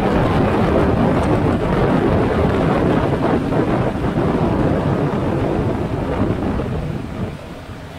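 Wind rushing and buffeting the microphone on a boat running at high speed, with the Evinrude G2 outboard and the hull on the water under it as a dense steady roar; the noise eases off about seven seconds in.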